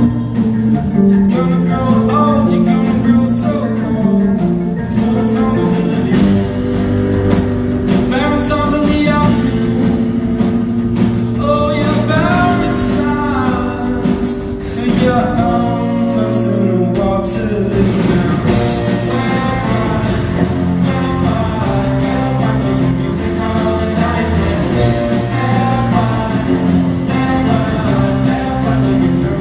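Live concert music: singing over plucked guitar and sustained instrumental notes, with a steady low bass line.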